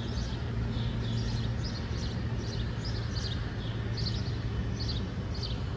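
Small birds chirping, short high chirps about two or three a second, over a steady low hum that fades about five seconds in.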